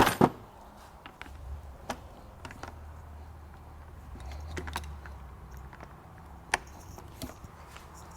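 Scattered metallic clinks and knocks of hand tools, sockets and wrenches, on the transmission mount bolts of a 2011 VW Jetta, with a louder knock at the very start and a low hum underneath for a few seconds in the middle.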